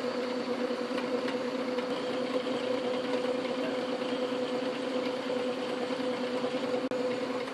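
Small metal lathe running steadily, its motor and belt drive giving an even hum, while a cutting tool relieves the corner of a 3D-printed plastic handle held in the chuck.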